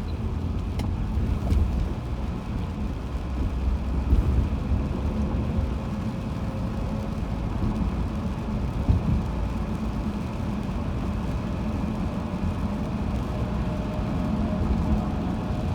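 Steady road noise heard from inside a moving car's cabin: a low rumble of tyres and engine with a faint steady hum, and a few small knocks from the car.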